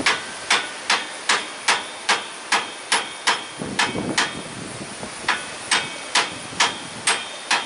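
A hammer tapping steadily on an impact socket used as a seal driver, about two or three sharp metal strikes a second with a short pause partway through. The strikes drive a new lip-type grease seal home into the S-cam bushing bore of a truck air brake.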